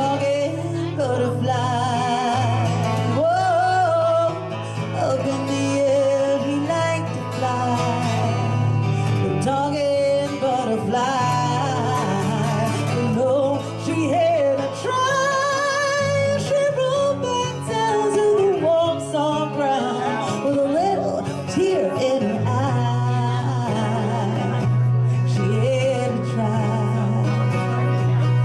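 Live acoustic music: a steadily played acoustic guitar under a woman's voice singing a wordless melody with vibrato, the closing stretch of the song.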